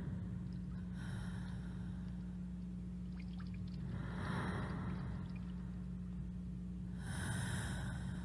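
Three audible breaths, roughly three seconds apart, over a steady low electrical hum.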